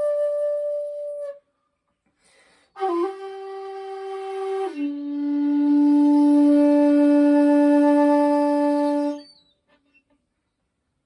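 Shakuhachi playing solo: a held high note ends about a second in, then after a pause a middle note starts with a slight pitch dip and drops near five seconds in to a low note, the loudest, held for about four seconds before it stops.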